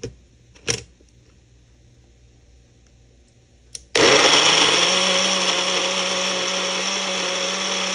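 Ninja Fit personal blender starting about halfway through and running steadily at full speed, its blades chopping celery, carrot and apple in juice into a smoothie. It is run by pressing the cup down onto the base. Before it starts there are a few light clicks and knocks.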